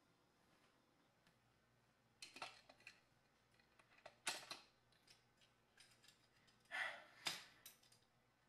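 Short, scattered scrapes of a small object and hand pushing crumbs across a kitchen countertop. They begin about two seconds in, with the loudest about four seconds in and a pair near the end, against near silence.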